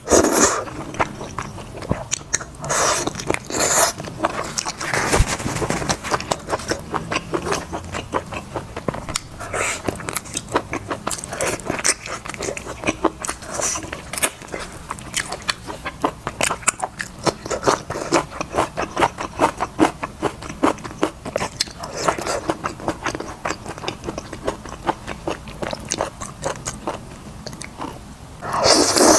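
A person eating wide noodles and braised chicken: slurping noodles at the start, about three seconds in and near the end, with long stretches of chewing full of quick wet mouth clicks and smacks in between.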